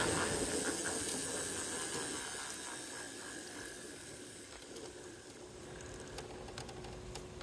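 G scale garden-railway train running along the track, its motor and wheel noise fading away as the train slows to a stop, leaving a faint steady hum and a few small clicks.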